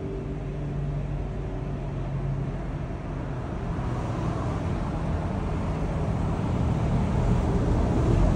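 Road and engine noise inside a car's cabin, a steady low rumble that grows gradually louder as the car picks up speed.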